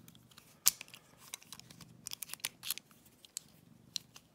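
Small metallic clicks and rattles from a Seal warded padlock and its key being handled and locked back up, with one sharper click just under a second in.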